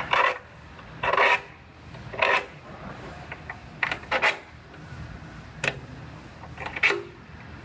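Steel scribe scratching along sheet-metal auto body panels in a series of short, sharp strokes, about one a second, marking the cut line where a new rocker/quarter panel section overlaps the old metal.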